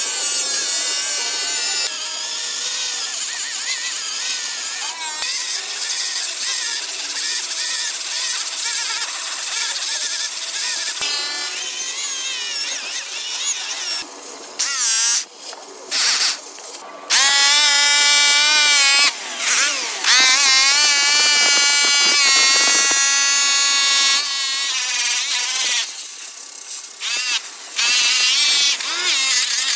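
Handheld electric rotary polisher running at high speed against an aluminium truck wheel, first with a sanding pad and then a red cut buff, making a steady high whine whose pitch wavers as the pad is pressed on and eased off. The sound breaks off and restarts abruptly several times around the middle.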